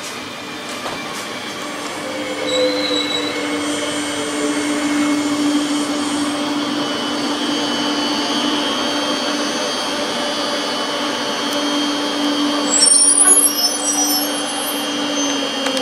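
Electric multiple-unit passenger train running slowly and braking: a steady electric whine over a rumble. Brief high brake squeals come about two and a half seconds in, and a louder, wavering wheel-and-brake squeal follows about three seconds before the end.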